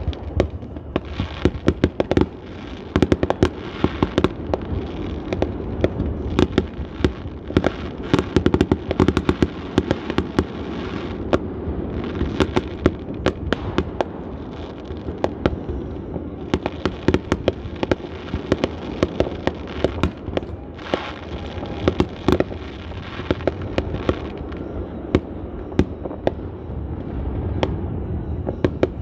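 Fireworks display in a continuous barrage: sharp bangs and crackles, several each second, from bursting aerial shells.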